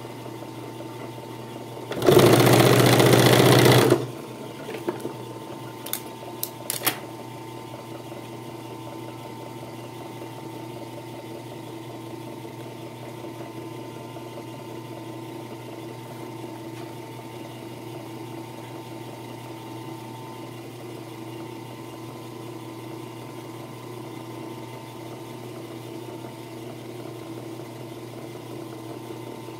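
Puritan three-needle sewing machine stitching through boot leather in one loud run of about two seconds, followed by a few light clicks, over a steady motor hum.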